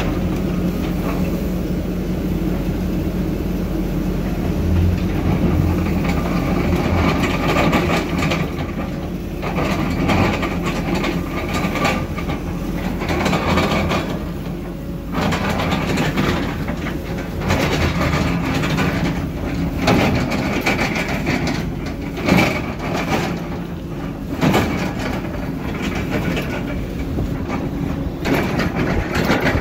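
Heavy construction machinery running steadily, with repeated clanks and scrapes throughout.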